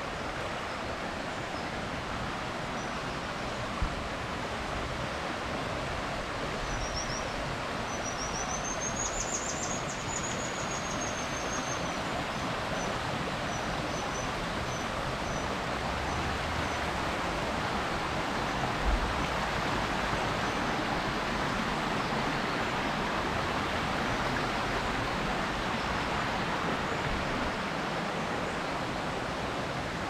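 Steady rush of river water pouring over a waterfall or weir. A small bird sings a short high trill with a few chirps about a third of the way in, and there are two brief low thumps.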